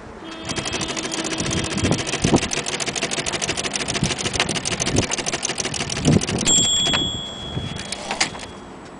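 Olympia SM3 De Luxe manual typewriter running off a fast, even string of mechanical clicks, about a dozen a second, as the carriage steps along. About six and a half seconds in, the margin bell rings once and fades out over a couple of seconds, signalling the end of the line.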